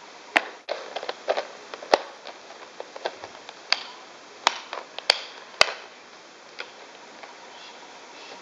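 Hard plastic lure box and the lures inside it clicking and knocking as they are handled and packed into a plastic crate: a string of sharp clicks, some in quick clusters, dying away about six seconds in.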